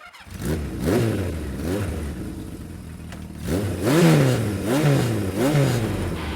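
Built-in siren of an Elser 800V1 motorcycle alarm sounding a wailing tone that sweeps up and down again and again, about every 0.7 s; the sweeps grow louder after a short dip about halfway through.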